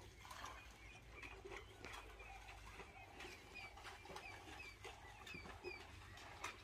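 Faint birds chirping: short high notes repeated about twice a second, with a few soft clicks in the background.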